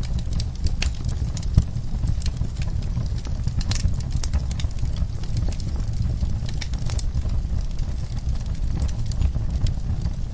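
Wood fire burning in a fireplace, with a steady low rumble of the flames and irregular sharp crackles and pops from the burning wood and embers.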